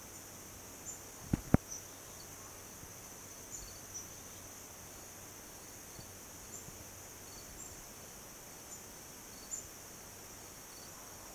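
Steady high trill of crickets with short high chirps scattered through it, and two sharp clicks close together about a second and a half in.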